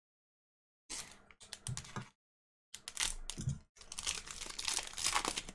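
A foil baseball card pack wrapper crinkling and tearing open, mixed with cards being handled, in three short rustling spells starting about a second in.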